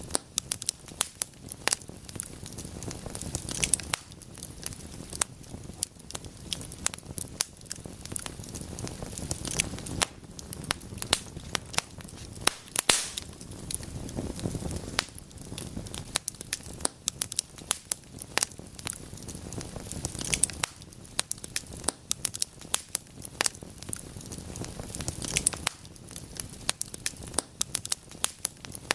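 Wood fire burning in a fireplace: frequent sharp crackles and pops over a steady low rumble of flames.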